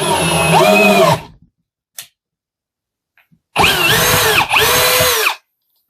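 Drill running a rivet nut adapter, pulling a rivet nut into sheet metal. It runs in bursts: one of about a second and a half, a click, then two more close together, its whine dropping and rising again as the motor takes the load.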